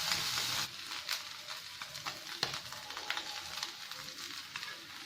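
Rava-coated fish shallow-frying in hot coconut oil, sizzling with scattered sharp crackles; the sizzle drops off sharply less than a second in.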